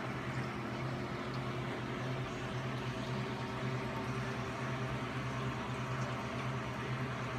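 Reef aquarium running: a steady low hum from its pumps over the even rush of circulating water.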